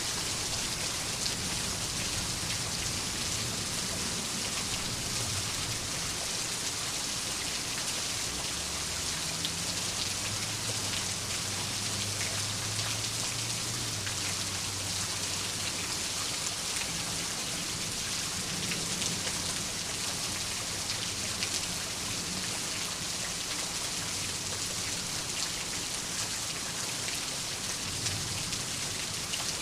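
Steady, dense rain falling on surfaces, with fine drop patter throughout and a low rumble underneath that swells for a few seconds about ten seconds in.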